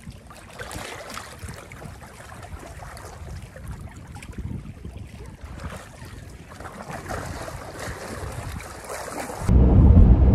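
Water sloshing and splashing, with wind buffeting the microphone, as a carp is returned to the lake. About nine and a half seconds in, it cuts suddenly to the loud, steady low rumble of a car on the road.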